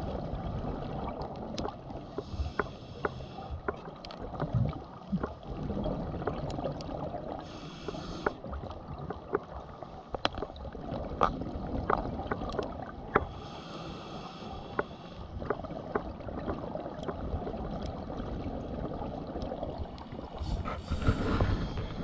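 Underwater ambience picked up by a diver's camera: a steady low water rush with scattered sharp clicks, and a hissing burst of diver's exhaust bubbles every five or six seconds, four in all.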